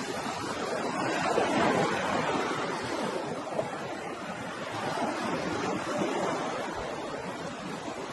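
Ocean waves washing onto a shore, a continuous surf that swells and eases slowly, loudest about a second and a half in.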